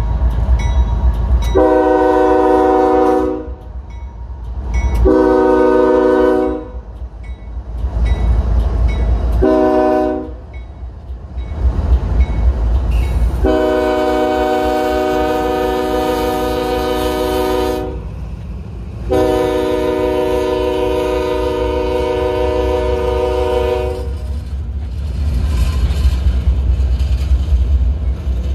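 Union Pacific ES44AC lead locomotive's air horn sounding the grade-crossing signal: two long blasts, a short one, then two longer held blasts. Under it run the steady low rumble of the diesel locomotives and the clatter of wheels as the freight train rolls slowly past.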